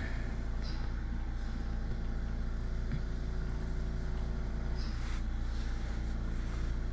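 Steady low hum with even, unchanging tones, and a couple of faint brief hisses.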